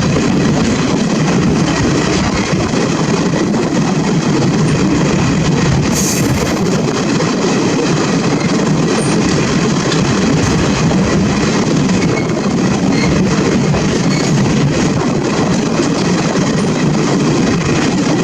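Train in motion on Indian Railways track, a steady, loud running noise of wheels on rails.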